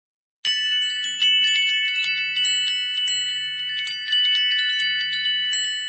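High chime tones, many struck notes ringing over one another like wind chimes, starting about half a second in, with faint low tones coming and going beneath.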